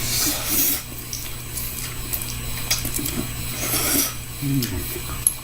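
Several short wet slurps of spicy ramen noodles being eaten, over a steady low room hum.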